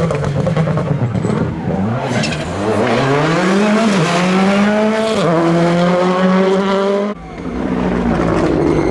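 Citroën C3 Rally2's turbocharged four-cylinder engine accelerating hard. Its pitch climbs, drops sharply at an upshift about four seconds in, and climbs again before the sound cuts off abruptly about seven seconds in.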